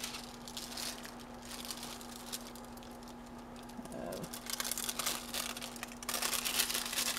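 Diamond painting canvas and its plastic cover film crinkling and rustling as they are handled, growing louder near the end.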